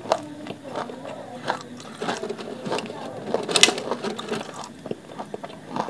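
Hard, dry clay lumps being chewed, giving a string of sharp crunches. The loudest comes a little past halfway.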